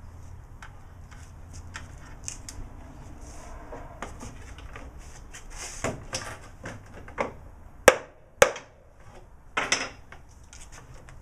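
Pneumatic nail gun firing nails into a glued-up plywood cabinet case: two sharp cracks about half a second apart, the loudest sounds, near eight seconds in. Around them are knocks from a wooden mallet tapping the joints and the clatter of handling the tools.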